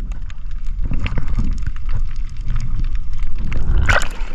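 Underwater sound heard through a GoPro housing held below the surface over a shallow rock reef: a muffled low rumble of moving water with faint scattered clicks. Just before the end comes a brief splash as the camera breaks the surface.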